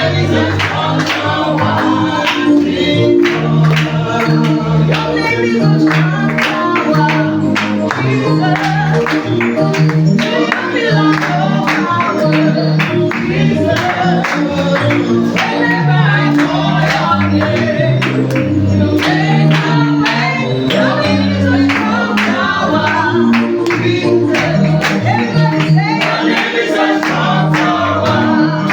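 Gospel praise music: a worship team singing over a band with bass and a steady drum beat.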